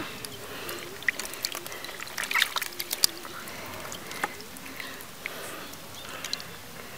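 Wet splashing and squelching of hands working in shallow muddy water, grabbing stinging catfish. Scattered sharp clicks and knocks of handling throughout.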